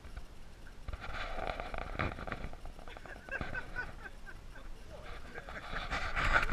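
Indistinct voices of several people talking and calling out around a table, with no clear words, getting louder near the end.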